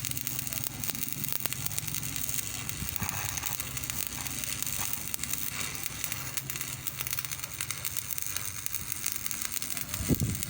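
Stick (arc) welding: the electrode arc crackling and sizzling steadily over a low machine hum, with a short thump near the end.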